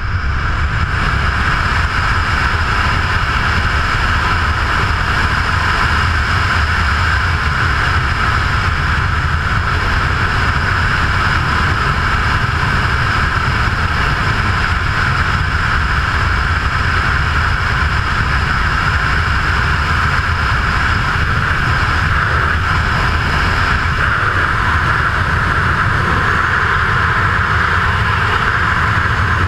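Loud, steady rush of wind over a GoPro's microphone during wingsuit flight.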